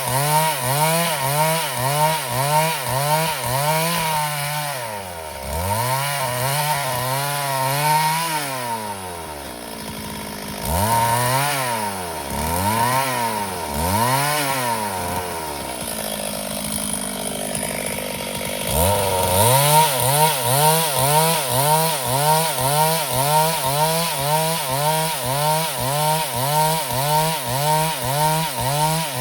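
Two-stroke chainsaw running at high revs as it cuts wood. In the middle the revs fall and climb back several times, then settle to a lower steady speed for a few seconds before the engine opens up again.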